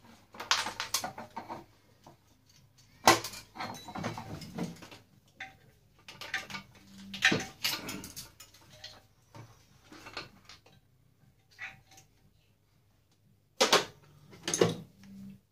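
Metal parts of an electric t-shirt heat press being handled while it is taken apart: clinks, knocks and rattles of the steel frame and control box. They come in several short bursts with pauses between, the sharpest knock about three seconds in.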